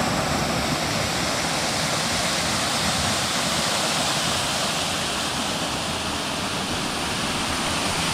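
Waterfall pouring into a shallow pool: a steady, even rush of falling water.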